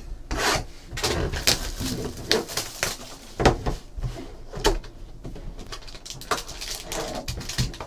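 Plastic shrink wrap crinkling and tearing as a sealed trading-card hobby box is opened, with scattered handling clicks and rustles.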